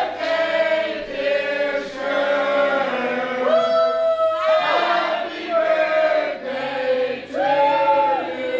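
Several voices singing together in a choir-like chant, holding long notes that slide up and down between pitches.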